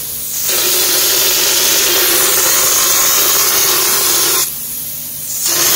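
Texture spray gun hissing steadily as it sprays texture onto a wall, with a low hum under the hiss. It cuts off for about a second near the end, then starts again.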